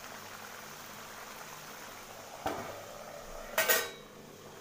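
Steel lid and metal spatula set down on a pan of simmering curry: a light metallic knock about halfway in, then a louder clatter with brief ringing near the end.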